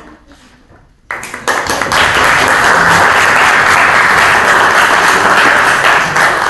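Audience applauding: clapping breaks out about a second in and quickly builds to loud, steady applause.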